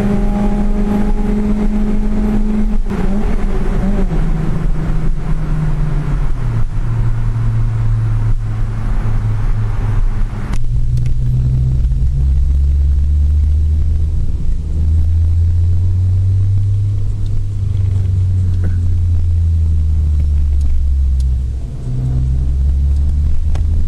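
A car engine and exhaust held at high revs, with the revs falling back in steps to a steady low idle about ten seconds in. Near the end there are a couple of light blips of the throttle.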